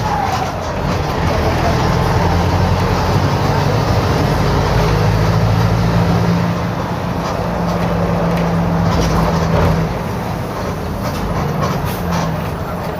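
Diesel engine of a Mercedes-Benz OF-1721 BlueTec 5 bus running with a holed exhaust. Its note holds steady, then eases off about ten seconds in.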